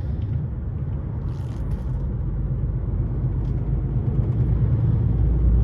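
Heavy goods lorry's diesel engine and road noise heard from inside the cab, a steady low rumble that grows a little louder near the end.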